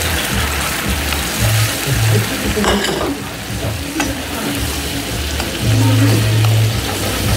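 Pineapple juice sizzling and bubbling with caramelized pineapple rings and brown sugar in a skillet, while a spoon stirs and turns the rings. A couple of sharp taps of the spoon against the pan sound about three and four seconds in.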